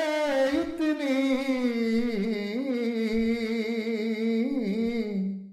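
A single voice singing an Urdu naat unaccompanied, drawing one syllable out into a long, wavering, ornamented note that stops near the end.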